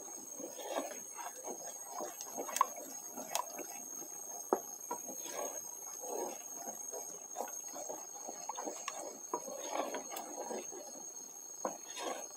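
A small metal spoon stirring a thickening white sauce in a pot: soft swishing through the liquid, with irregular clinks and scrapes of the spoon against the pot.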